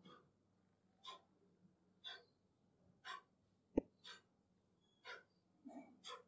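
Near silence: faint room sound with soft short puffs of noise about once a second, and a single sharp click a little past the middle.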